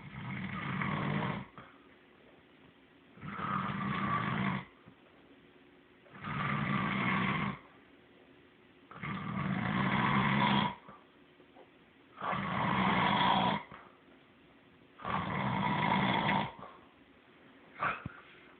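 Slow, regular snoring: six long snores about three seconds apart, each lasting over a second, then a brief shorter sound near the end.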